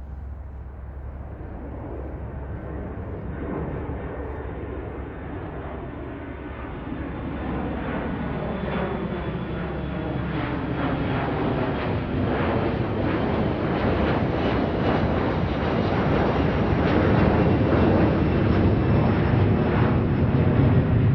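Aeroplane flying by: a continuous low rumble that grows steadily louder as it approaches, with tones sliding down in pitch.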